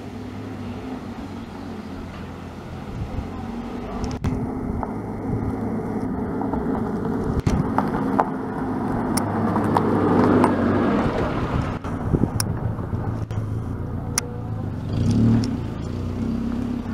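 Vehicle engines running with a steady low hum that swells to a peak about ten seconds in and then eases off. A few sharp clicks come in the second half.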